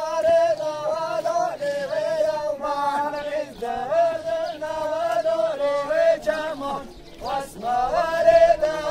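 A man singing a govend line-dance song unaccompanied, in long wavering held notes with short breaks for breath about three and a half and seven seconds in.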